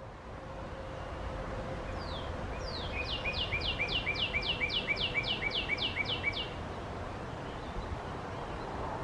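Male northern cardinal singing: two slow down-slurred whistles, then a quick run of about a dozen down-slurred notes at roughly four a second, over a low steady background rumble.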